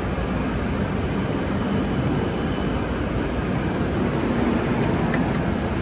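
E7-series Shinkansen bullet train pulling out past the platform: a steady, loud rumble and rush of the moving train.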